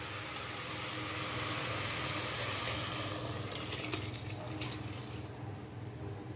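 Soaked basmati rice and its coconut water being poured from a pan into a pressure cooker full of vegetables: a steady splashing pour for about three seconds, then a few light clicks and scrapes as the last of the rice slides in.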